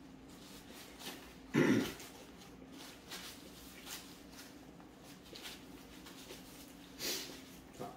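A man eating: soft chewing and small mouth and hand sounds, with a short low vocal sound, like a grunt or throat clearing, about one and a half seconds in, and a shorter breathy sound near the end.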